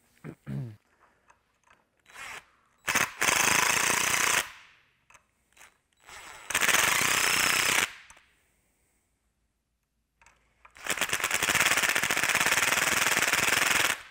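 Cordless impact driver hammering nylock nuts down onto U-bolt threads through a socket extension, in three bursts: two short runs and a longer one of about three seconds near the end. A brief low rising whir comes about half a second in.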